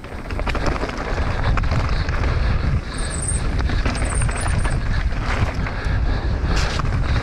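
Mountain bike riding fast downhill: wind buffeting the action-camera microphone over a steady low rumble of tyres on dirt, with frequent rattles and knocks from the bike over rough ground.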